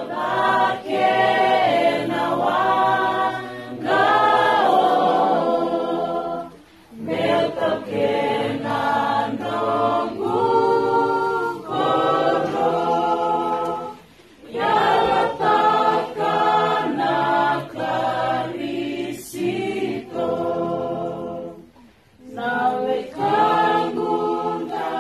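Unaccompanied group singing: a choir of voices singing in harmony, in long phrases broken by short pauses about every seven or eight seconds.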